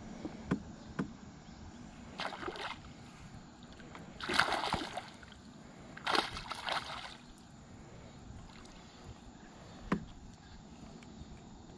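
A hooked smallmouth bass splashing at the water's surface beside a canoe in three short bursts, about two seconds apart, the loudest near the middle. A few sharp knocks come before and after.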